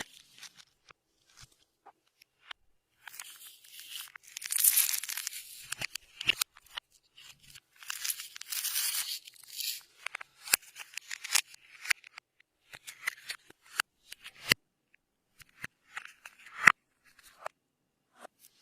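Clear slime being worked by hand, giving sticky crackles and pops. There are two longer runs of crackling, about three to six seconds in and again around eight to ten seconds, with scattered single clicks in between.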